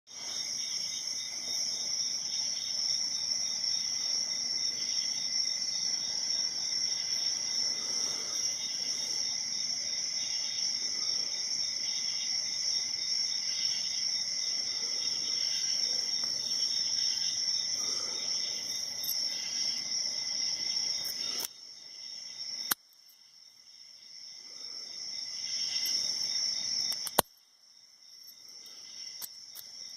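Insects chirping in a steady chorus. The chorus cuts off abruptly about two-thirds of the way through, swells back, and cuts off again near the end, with a couple of sharp clicks at the cuts.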